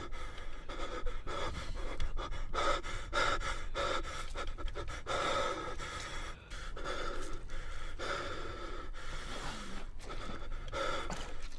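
Heavy, continuous panting breaths from a battered, exhausted man lying wounded after a fight.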